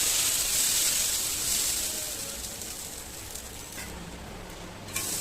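Dosa batter sizzling on a hot griddle, a steady hiss that fades away over the first few seconds. A short knock near the end.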